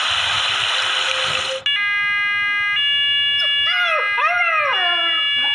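A hiss for about a second and a half, then steady electronic tones that shift pitch once. Over them, a German Shepherd puppy howls in a few rising-and-falling yowls.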